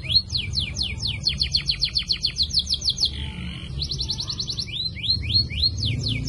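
Female canary singing: phrases of quick down-slurred notes at about five a second alternating with faster trills, with a brief pause about three seconds in, over a low steady background hum.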